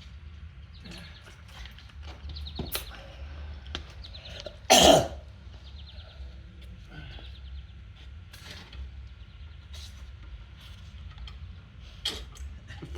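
A man coughs once, loudly, about five seconds in, among faint scattered clicks.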